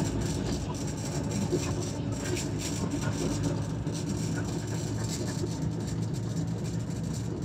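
Historic tram running along the rails at speed: a steady rumble of wheels and running gear.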